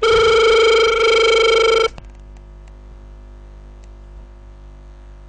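Telephone ringback tone on the line while the called phone rings unanswered: one loud, steady, buzzy tone lasting just under two seconds, then about four seconds of faint line hiss before the next ring.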